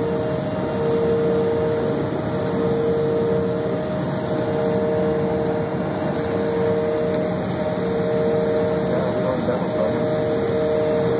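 Airliner's jet engines running at taxi power, heard inside the cabin: a steady rumble with a steady whine of two tones on top.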